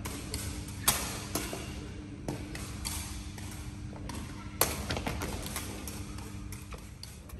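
Sharp thuds and taps of sepak takraw training, with balls being struck and feet landing on a hard court, two loudest knocks about a second in and near the middle. A steady low hum runs underneath.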